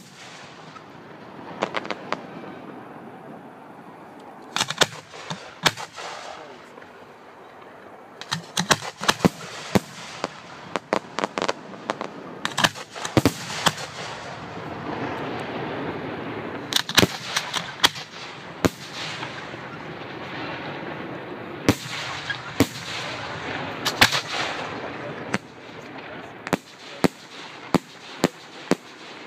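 Aerial firework shells bursting with sharp bangs that come in quick volleys of several reports at a time, over a steady noisy haze between the volleys.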